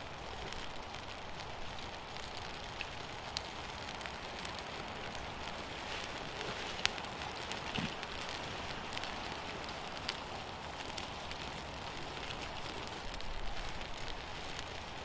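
A small campfire of twigs and birch bark laid over damp logs, just lit and catching, with scattered sharp crackles and pops.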